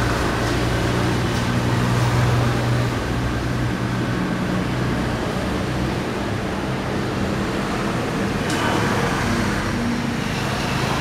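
Street traffic ambience: a steady rush of traffic noise over wet road, with a low engine hum from a vehicle that is strongest for the first few seconds and then fades.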